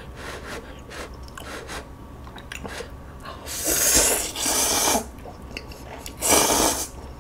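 Instant ramyeon noodles being slurped up with chopsticks: a long slurp in two pulls about halfway through, then a shorter one near the end, with soft mouth clicks and chewing in the quieter stretches.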